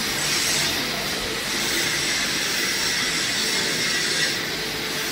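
Steady rushing hiss of workshop background noise, with no distinct knocks or tones.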